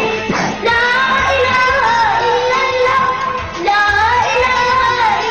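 A boy singing, holding long wavering notes that slide from one pitch to the next.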